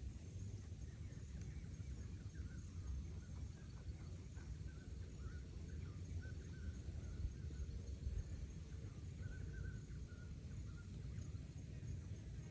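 Outdoor ambience: a steady low rumble, like wind on the microphone, with faint short chirps scattered through it and a faint steady high hiss.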